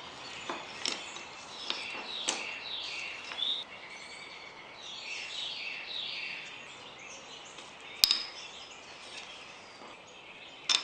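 Birds chirping, a series of short falling chirps repeating. Over them come a few light ticks and one sharp click about eight seconds in, with another click at the very end.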